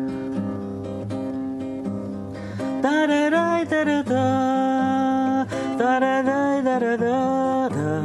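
Acoustic guitar playing a song introduction, joined about three seconds in by a man's singing voice over the guitar.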